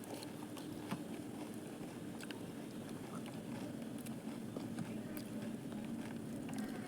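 Eating sounds at a mukbang: chewing with scattered small crunches and clicks, over a steady low hum.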